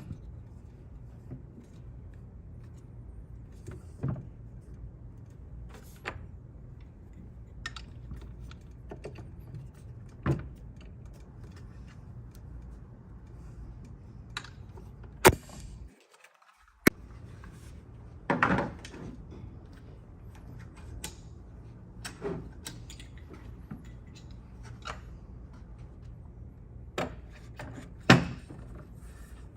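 Scattered metal clinks, clicks and knocks of chair parts being handled as casters are fitted to a shower commode chair frame, with a steady low hum underneath. A heavier clatter comes about eighteen seconds in, and the sound cuts out for a moment just after sixteen seconds.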